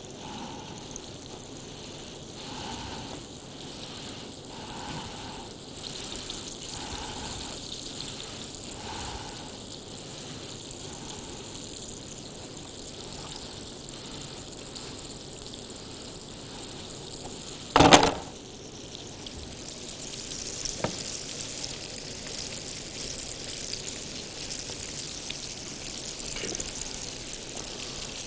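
Oat-coated chicken escalopes frying in hot oil, a steady sizzle. A single sharp clatter about eighteen seconds in is the loudest moment, and the sizzle grows fuller after it.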